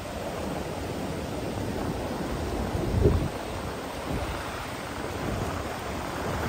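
Ocean surf washing on a beach, with wind buffeting the microphone. About three seconds in there is a brief low thump.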